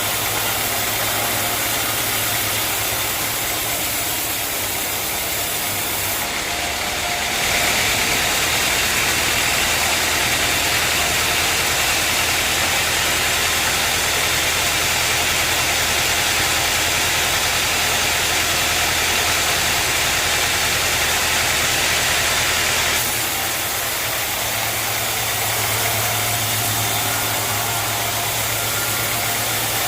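Sawmill machinery running steadily with a low engine hum. For about fifteen seconds in the middle it grows louder with a bright hiss, then settles back.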